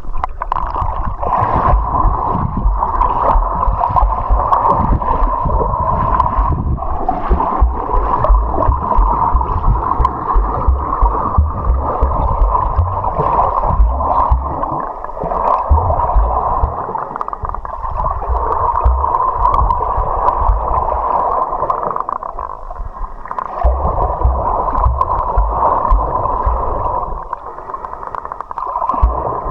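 Flowing river water heard through a submerged microphone: a muffled, steady rush with frequent low bumps and knocks, easing off briefly a couple of times.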